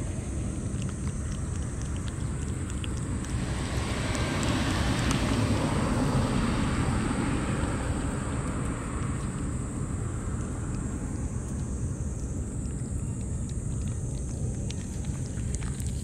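A cat licking and chewing wet food from a metal dish, making small wet clicks, over a steady low outdoor rumble. A passing vehicle swells up a few seconds in and fades away again.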